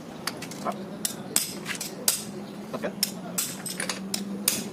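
Irregular sharp metallic clinks and ticks of a socket wrench and extension bar turning on a car's wheel nuts as the nuts are run on by hand.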